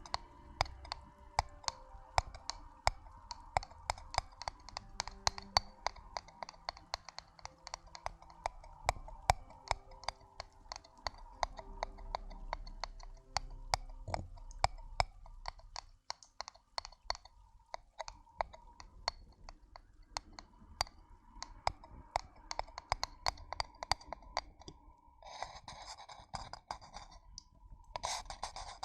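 Close-miked ASMR trigger sounds: a steady run of crisp clicks and scratches, about two a second, with a couple of denser crackling rustles near the end.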